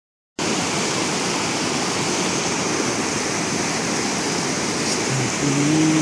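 Mountain stream rushing over boulders, a steady loud rush of water. About five seconds in, a voice calls out briefly over it.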